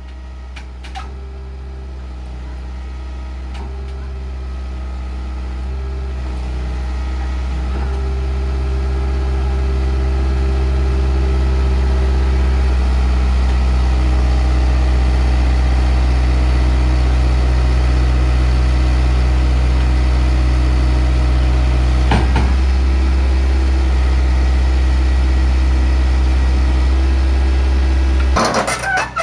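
A steady, low engine hum that grows louder over the first dozen seconds, holds level, then cuts off suddenly near the end.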